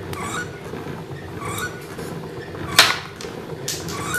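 Light wooden clicks from a wooden piston being handled in a turned wooden air cylinder, with one sharp click about two-thirds of the way in, over a steady low hum.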